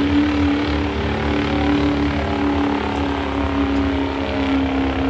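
Diesel pickup truck's engine running flat out under heavy load as it drags a truck-pulling sled, the note held steady at high revs with black smoke pouring from the exhaust.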